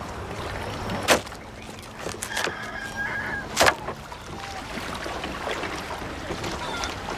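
Two sharp knocks, about a second and three and a half seconds in, over a steady low hum, with a brief faint call in between.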